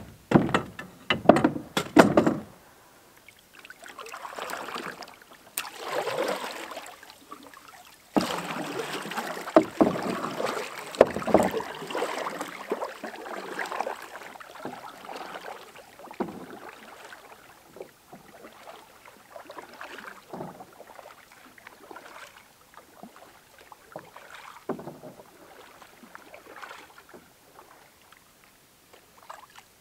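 Canoe launching from a rocky shore: gear knocking into the hull, then the hull scraping and grinding on rock as it is pushed off into the water. After that, paddle strokes in the water about every two seconds, growing fainter as the canoe moves away.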